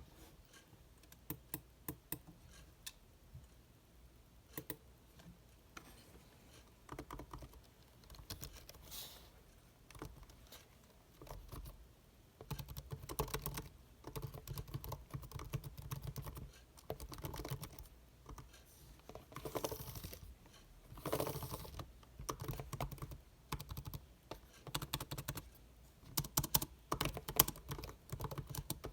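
Inexpensive computer keyboard being typed on, its keys clicking. Scattered single key presses at first, then steadier, denser typing from a little before halfway through.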